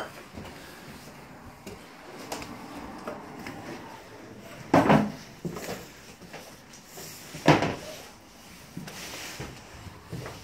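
Two loud knocks about three seconds apart, with lighter bumps and a low rustle between them: the knocks and handling noise of squeezing through clutter.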